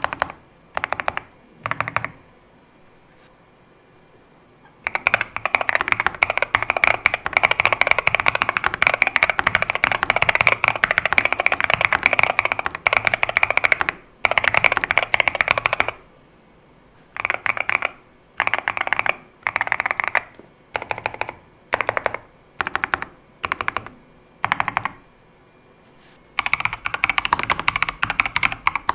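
Typing on a Skyloong GK75 mechanical keyboard with PBT keycaps: a few short bursts of keystrokes, then about ten seconds of fast continuous typing, more short bursts with pauses between them, and fast continuous typing again near the end.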